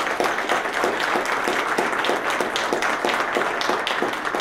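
A small audience applauding: many hands clapping at once, dense and steady.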